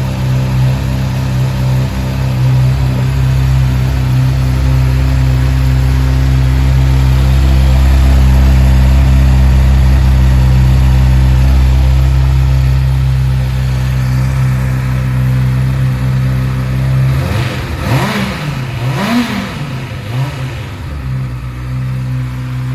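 Exhaust note of a 2011 Honda CBR600F's inline-four engine idling steadily. Near the end the throttle is blipped three times in quick succession, the pitch rising and falling with each rev before it settles back to idle.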